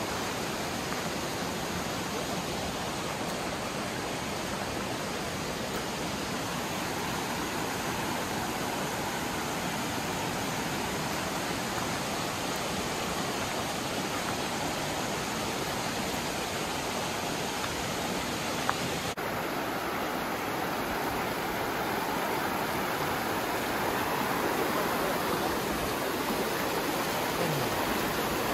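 Shallow mountain creek rushing over stones, a steady rush of water that grows a little louder in the last third.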